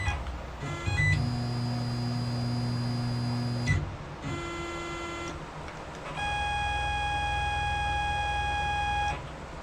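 Tormach 15L Slant-Pro CNC lathe's drive motors whining as the machine moves. There are three steady whines, each higher in pitch than the one before: a low one about a second in, a shorter one just past the middle, and a longer, highest one near the end.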